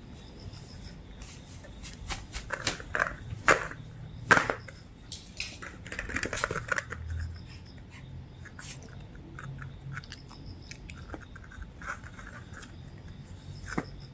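A tangled cotton-rope toy with small plastic pieces being handled on a floor mat: rustling and a scatter of sharp clicks and knocks, busiest in the first half, then sparser light ticks.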